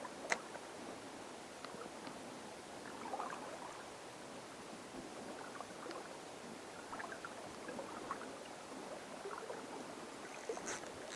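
River water moving and lapping with light, irregular splashes, with one sharp click about a third of a second in.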